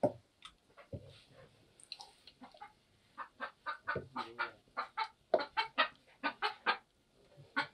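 Domestic hen clucking in a quick run of short calls, about four a second, starting about three seconds in.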